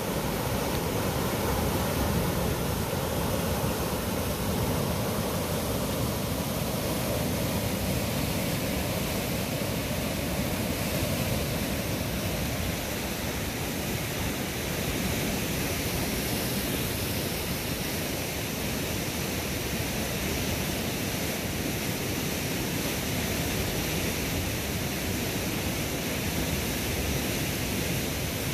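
A river in flood: fast, swollen, muddy current rushing and churning around trees, a steady even rush of water.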